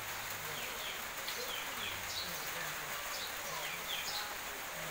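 Small birds chirping: short, quick downward-sliding calls repeated every second or so over a steady outdoor hiss, with faint low sounds underneath.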